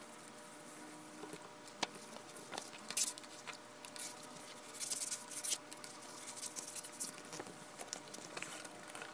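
A thin plastic protective film sheet rustling and crackling as it is handled, peeled and smoothed onto the back of an iPad tablet, with scattered sharp little clicks and a denser crackle about five seconds in.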